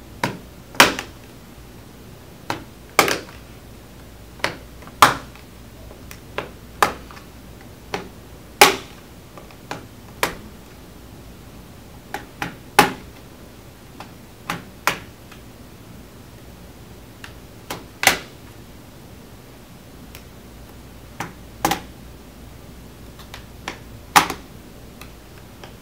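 Plastic snap clips of an HP Chromebook G4 Education Edition's keyboard bezel clicking loose one after another as a metal pry tool is worked around its edge: a couple of dozen sharp clicks at irregular intervals.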